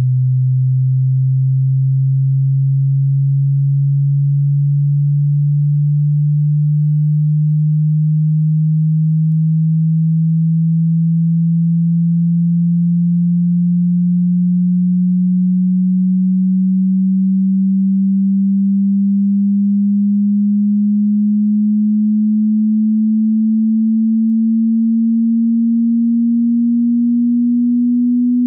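Hearing-test sine tone: a single low pure tone sweeping slowly and steadily upward in pitch, at constant loudness.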